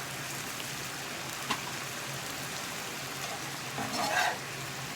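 Squid and onion stir-frying in a pan, sizzling steadily, with a single sharp clink about a second and a half in and a brief scrape of the utensil against the pan near the end.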